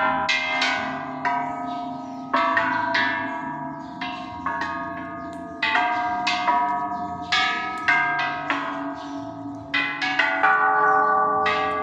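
Buddhist temple bells rung one after another in a quick, uneven series. Each strike rings on and fades under the next, and the pitches differ from bell to bell.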